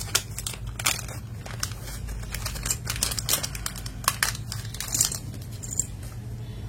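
Plastic crinkling with scattered sharp clicks as mechanical keyboard switches and their packaging are handled.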